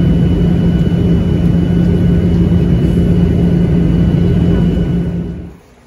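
Steady roar of a jet airliner's engines and airflow heard inside the cabin, with a low hum and thin high whining tones. It falls away sharply near the end.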